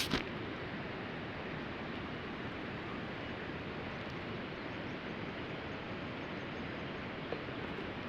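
Steady, even background hiss of outdoor ambience, with one faint click about seven seconds in.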